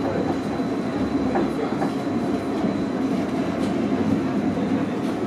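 Stadler Variotram light-rail tram heard from inside the passenger car while running: a steady rumble of wheels on rail with a few faint clicks and a thin steady high tone.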